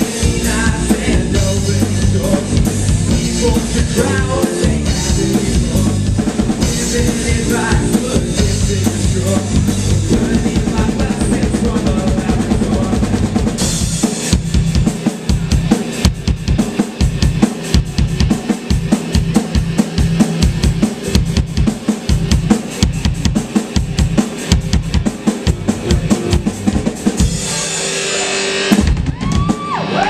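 Live band playing, with the drum kit to the fore. From about halfway the drums play hard, separate hits with short gaps between them.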